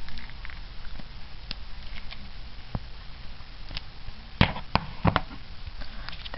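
Scattered clicks and crinkles of the plastic shrink wrap on a deck of trading cards being handled while someone tries to cut off a corner of the wrap. A few light clicks come first, then a louder cluster of four or five about four and a half seconds in.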